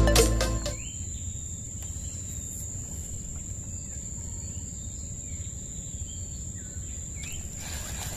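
Background music fades out within the first second, leaving outdoor ambience: an insect's steady, high-pitched drone that stops about seven seconds in, with faint bird chirps and a low rumble underneath.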